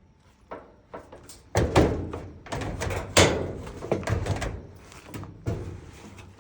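Sheet-metal front panel of a dryer being pulled forward and lifted off its mounting tabs: a series of clunks and rattles, the loudest about three seconds in.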